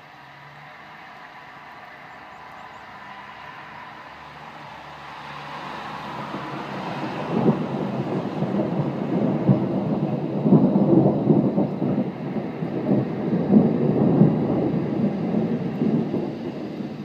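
Long peal of rolling thunder that builds slowly, rumbles loudest through the second half with crackling surges, and drops away suddenly near the end.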